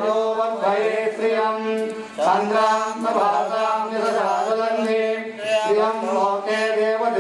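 Group of men chanting mantras in unison, the recitation rising and falling in short phrases over a steady low tone that holds throughout.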